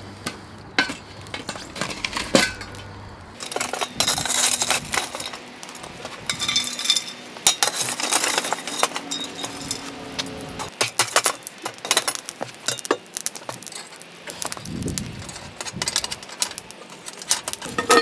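Steel shovel scraping and scooping hot coals in a steel fire pit, with many sharp clinks and knocks as the charcoal chunks tumble and hit metal.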